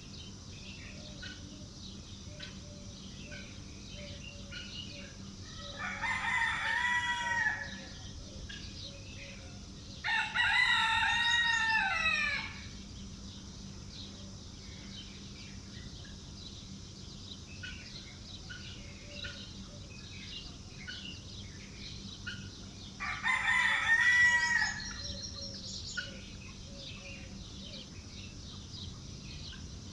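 A rooster crowing three times, each crow lasting about two seconds, over a steady background of small birds chirping.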